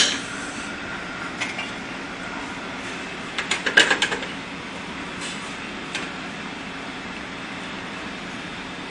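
Steady background hum of a commercial kitchen, with a quick run of metal clinks and knocks about three and a half seconds in as a saucepan is handled on a gas stove's grate; a few lighter single clicks come before and after.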